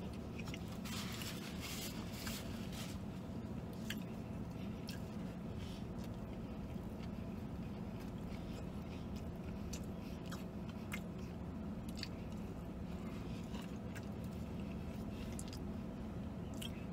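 A person chewing a mouthful of fried chicken sandwich with the mouth closed: soft crunching and scattered small wet clicks over a low steady hum.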